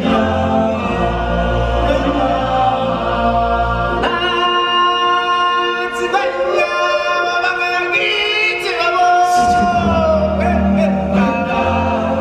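Stage-show music with a choir singing long held notes over a deep bass. The bass drops out about four seconds in, leaving the voices alone, and returns about five seconds later.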